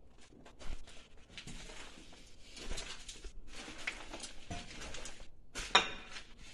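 Footsteps crunching and scraping over rubble and debris on the floor, with scattered clicks and a sharp knock near the end.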